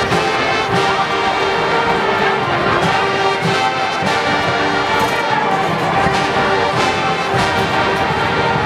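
Marching band playing, with brass instruments holding a sustained, chord-based tune over percussion hits.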